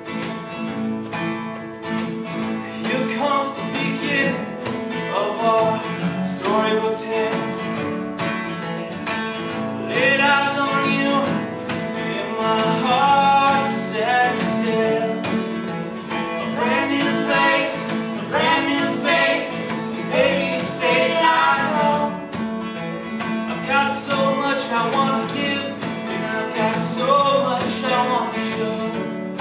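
Two acoustic guitars strummed and picked together, playing a song's accompaniment, with a voice singing a melody over them in phrases from a few seconds in.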